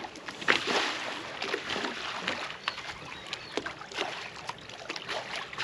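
Water lapping and slapping against the hull of a small boat drifting on calm sea: a steady wash dotted with many short splashy ticks.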